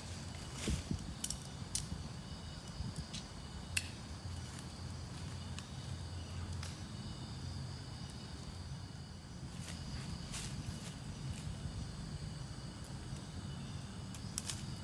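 Night insects, crickets among them, chirping steadily in a high continuous drone, over a low steady rumble. A handful of short clicks or rustles stand out, the loudest about four seconds in.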